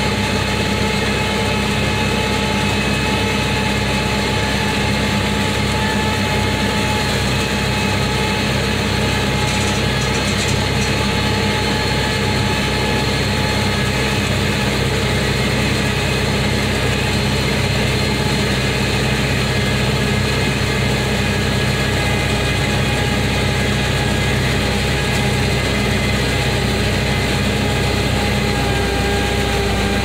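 Tractor engine running steadily while pulling and driving a round baler through a hay field, the baler's pickup and chamber turning with it; the sound holds at an even pitch and level, with a steady whine over the engine.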